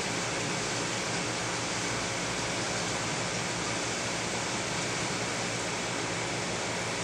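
Steady, even rushing hiss of aquarium water circulation, unchanging throughout.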